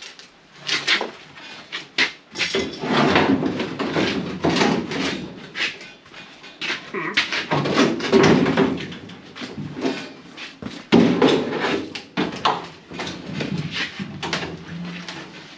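A large steel trunk floor panel with wheel tubs attached is wrestled into the body of a station wagon. The sheet metal scrapes, flexes and clanks against the car, with many sharp knocks all through.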